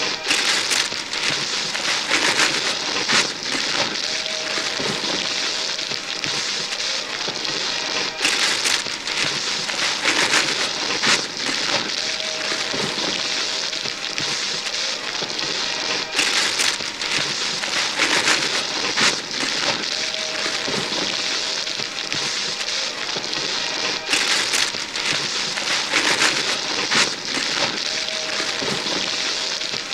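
Christmas wrapping paper being ripped and crumpled off gift boxes by several people at once: continuous rustling and crinkling with sharper tearing rips every second or so. The same few seconds of ripping repeat over and over as a loop.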